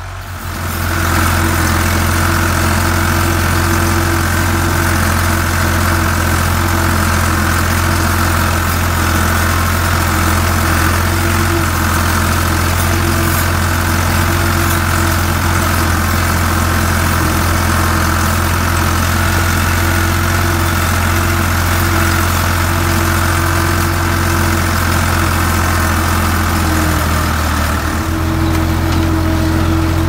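Ford 4610 tractor's three-cylinder engine running steadily under load while pulling a disc harrow.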